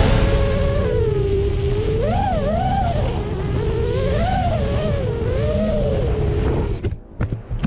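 FPV quadcopter motors whining, the pitch rising and falling in swoops as the throttle changes, over strong wind buffeting the microphone. The motor tone cuts out about seven seconds in, leaving gusts of wind noise.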